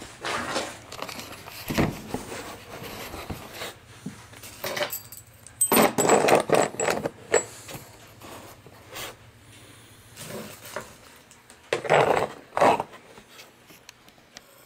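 Handling noise from a camera being moved and set up: irregular rubbing, scraping and clicking knocks that come in three bursts, near the start, around the middle and near the end.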